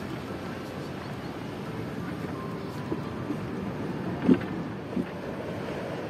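Steady outdoor background rumble, with a few brief sharp sounds. The loudest comes a little over four seconds in, and a smaller one about a second later.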